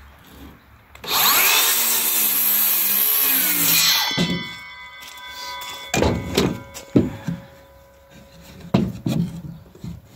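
Circular saw cutting through a wooden board for about three seconds, its motor then winding down with a falling hum and the blade ringing as it coasts to a stop. Several sharp knocks follow.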